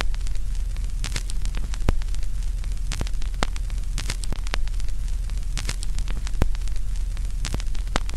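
Crackling noise: irregular sharp pops and clicks, several a second, over a steady low rumble and hiss.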